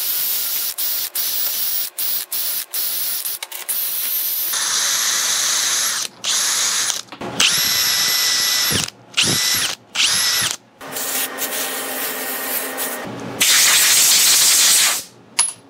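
Makita 18-volt cordless drill spinning a wire-wheel brush against metal, starting and stopping in a series of short runs, with a high motor whine when it spins freely. Near the end there is a louder steady noise lasting about a second and a half.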